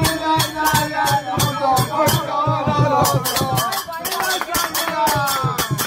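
Festive music: a melody over a quick, steady percussion beat with a shaker rattling on every beat.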